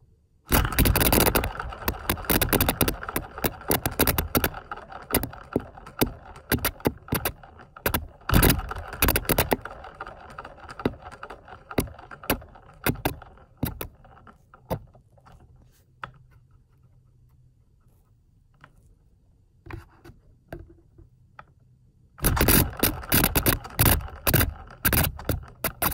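Rattling and scraping with many quick clicks from a cardboard phenakistoscope disc being spun and handled close to the microphone. It goes quieter, with only scattered clicks, for several seconds after the middle, then picks up loudly again near the end.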